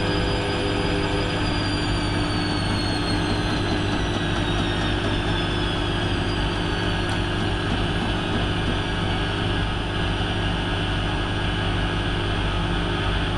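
Hotpoint Aquarius WMF70P washing machine spinning, a steady loud rushing drum noise with a low hum. A high motor whine slides down in pitch over the first several seconds.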